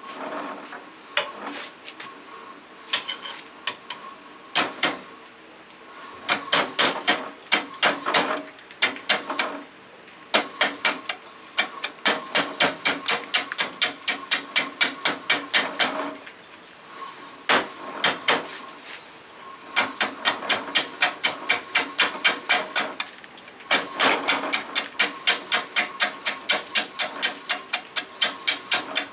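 A bowl gouge knocking against the uneven rim of a large maple burl spinning on a Shopsmith lathe at about 250 RPM. The tool catches the high spots in rapid even knocks, about four a second, once per turn. The knocks come in runs broken by short pauses, over the lathe's steady hum.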